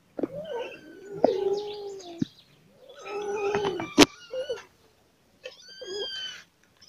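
Cats meowing over food: three drawn-out meows with gliding pitch, and a sharp click about four seconds in.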